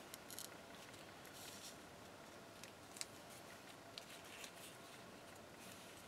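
Near silence with faint paper rustling and a few light ticks as cut paper pieces are handled and tucked into place, the sharpest tick about three seconds in.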